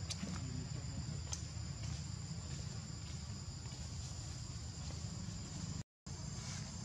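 Insects chirring outdoors in a steady high-pitched drone over a constant low rumble. The sound cuts out completely for a moment about six seconds in.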